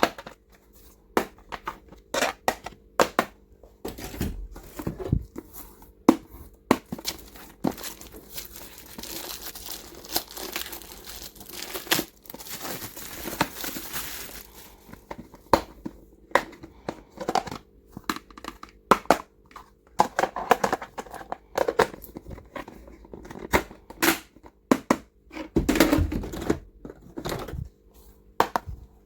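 Plastic wrapping crinkling and tearing as it is unpacked. Sharp clicks and taps of small plastic items being handled sound throughout, with a stretch of continuous crinkling in the middle.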